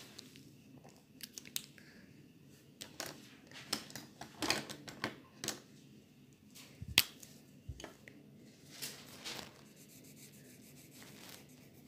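Scattered small clicks and rustles of small objects being handled on a table, with one sharp click about seven seconds in; it quietens over the last couple of seconds as a felt-tip marker is put to the paper.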